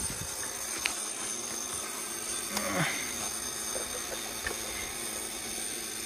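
An engine running steadily, with a faint high whine over it. A few light metallic clicks come from jumper-lead clamps being handled on truck batteries.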